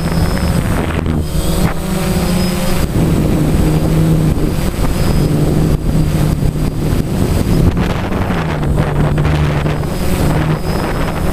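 DJI Phantom quadcopter's motors and propellers humming in flight, heard from the GoPro mounted on it. The pitch shifts up and down as the motors change speed, with wind on the microphone.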